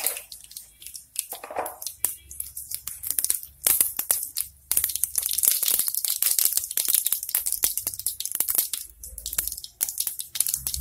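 Mustard seeds popping and spluttering in hot oil in a pressure cooker: a fast crackle of sharp pops, sparse at first and growing dense about two seconds in. This is the tempering stage, with the seeds bursting in well-heated oil.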